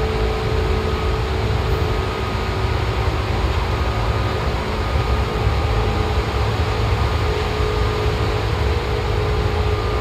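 Seibu 2000 series electric train running at a steady speed, heard from inside the car: a continuous rumble of wheels on rail with a faint, even hum.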